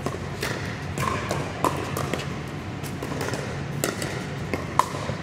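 Pickleball rally: a string of sharp, hollow pocks from the paddles striking the plastic ball and from the ball bouncing on the hard court. They come at an irregular pace and echo in a large indoor hall.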